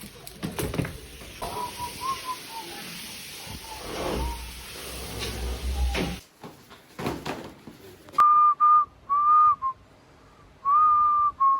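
Rustling and handling noise, then three clear whistled notes at about the same high pitch near the end, the last one held longest.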